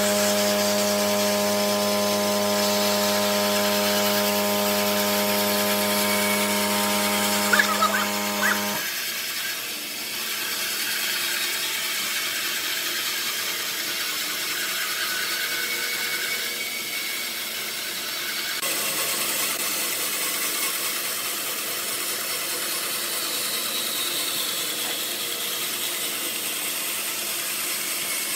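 Bandsaw cutting a curve through a thick wooden block: a steady hiss of the blade in the wood. For the first nine seconds or so a steady machine hum runs under it, with a few sharp knocks just before it stops abruptly.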